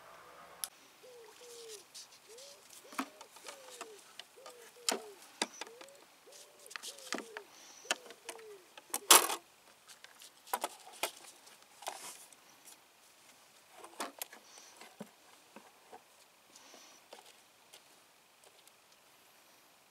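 Clicks, taps and knocks of hands handling the plastic hull and bait hopper of a Shuttle bait boat while a lead and rig are set in it, with one loud clatter about nine seconds in. A bird coos in repeated low notes in the background during the first half.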